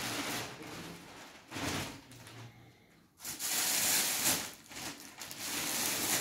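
Clear plastic garment bags crinkling and rustling as woollen tops are handled, louder and denser from about three seconds in.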